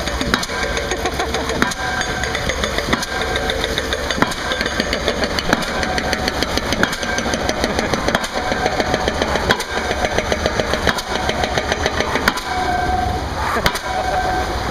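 Heavy construction machinery working at a bridge site: a diesel engine running, with a fast, steady knocking.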